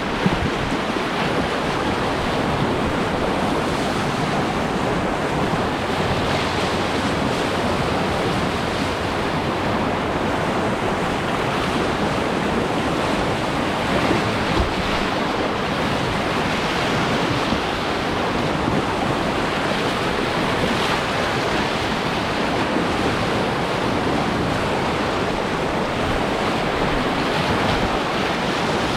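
Steady rush of whitewater running through a river rapid.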